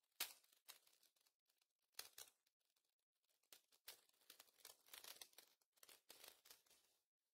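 Faint crinkling and tearing of a foil Pokémon booster pack wrapper being opened. A sharp tick comes near the start and another about two seconds in, then a longer run of crinkling in the second half.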